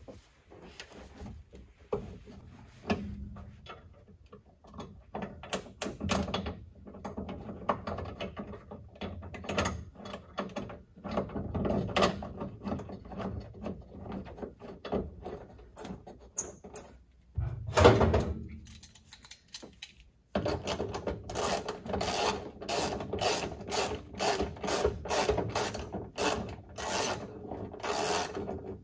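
Socket ratchet clicking as the deck lid's hinge bolts are run down. Irregular clicks and knocks at first, with one louder knock about eighteen seconds in, then a steady run of ratchet clicks, about two or three a second, for the last several seconds.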